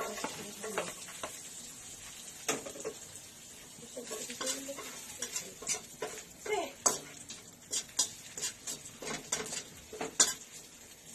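Chopped garlic sizzling in hot oil in a wok, the hiss starting as it is tipped in, with a slotted spatula scraping and clicking against the pan at irregular moments as the garlic is stirred.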